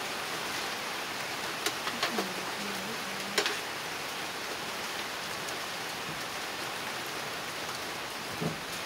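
Steady hiss of light rain falling, with a few short clicks of utensils on dishes and a brief low hum of a voice.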